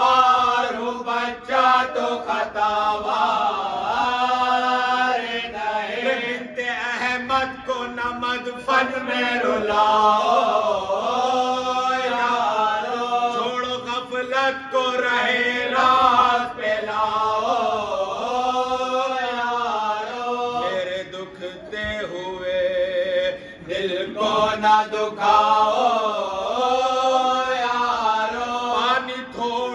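Marsiya, a Shia mourning elegy, chanted by unaccompanied male voices: a lead reciter at a microphone with the men beside him singing along in slow, wavering lines over a steady held note.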